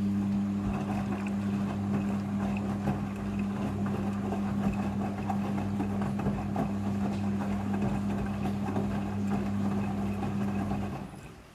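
Midea front-loading washing machine running: a steady electric hum with water rushing and gurgling through it, which cuts off about eleven seconds in.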